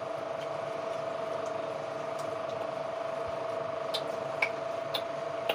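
Soft eating sounds of hands mixing rice on steel plates, with a few light clicks near the end, over a steady hum.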